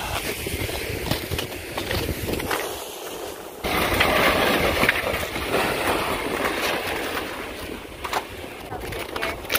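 Footsteps crunching and a plastic sled scraping over snow-covered ice, with wind noise on the microphone. The noise gets louder about three and a half seconds in.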